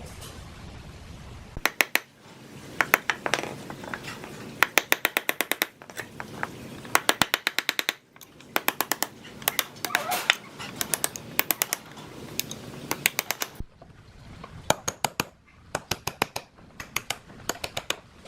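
Bursts of rapid sharp metallic clicks, about eight to ten a second, with short pauses between bursts, from hand-tool work on the fan's metal parts.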